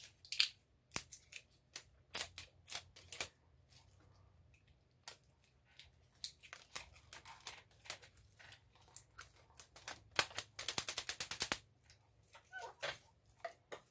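Plastic packaging of a Grande Drama mascara being worked open by hand: scattered sharp clicks and snaps, with a fast run of clicks lasting about a second around ten seconds in.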